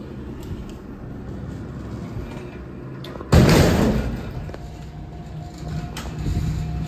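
Power-operated bi-parting freight elevator doors opening with a steady mechanical hum, and a loud metal bang a little over three seconds in that dies away over about a second.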